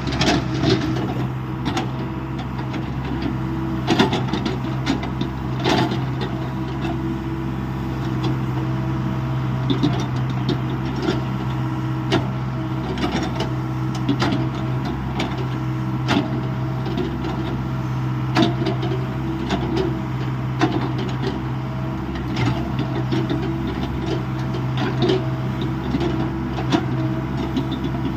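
Hyundai 85A excavator's diesel engine running steadily while it works, with frequent short knocks and clanks scattered throughout.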